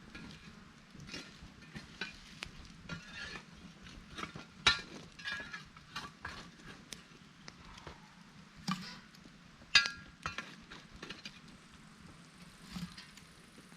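Metal tools scraping and clinking on a camp oven's lid as hot coals are changed on top of it: irregular knocks and scrapes, with two louder metallic clinks about a third and two-thirds of the way through.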